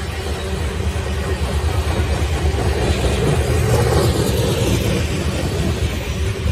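Canadian Pacific coal train's steel coal cars rolling past close by: a steady rumble of wheels on rail that swells a little about halfway through.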